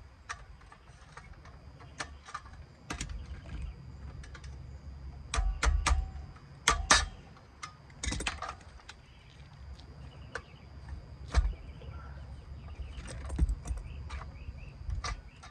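Irregular metallic clicks, clinks and knocks of hand tools and parts being handled during electrical work on a disconnect switch, with a louder cluster about the middle and a faint steady high tone underneath.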